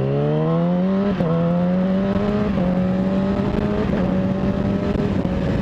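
Yamaha R6 sport bike's inline-four engine pulling under acceleration. Its pitch climbs, drops at an upshift about a second in, then holds nearly steady through smaller shifts, over a low rush of wind.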